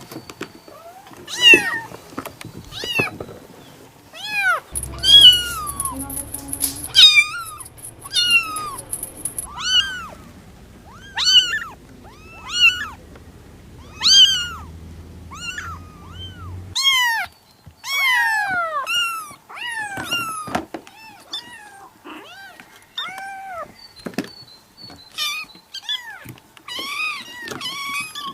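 Kittens mewing over and over: short, high-pitched mews, each rising and falling, about one a second.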